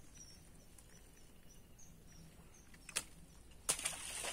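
Quiet outdoor background with faint, short high bird chirps, then two sharp clicks and a rustle near the end as a cast net's mesh is handled.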